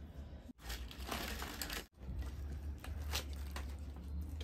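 Crisp deep-fried bhatura bread torn apart by hand: a crackling, crinkling tear from about half a second in to about two seconds, then scattered crisp crackles as the bread is handled and eaten.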